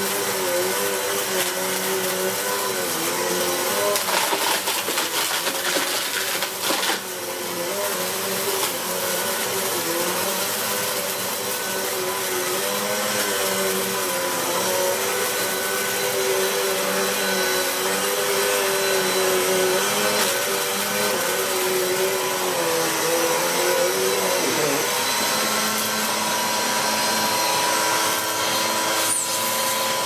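A Vax Energise Pulse Pet 750 W bagless upright vacuum cleaner running while being pushed back and forth over carpet, picking up grit; its motor note wavers throughout, and about 25 seconds in the pitch drops and then holds steadier. The machine is clogging its separator and losing suction, which the owner says set its relief valve going off.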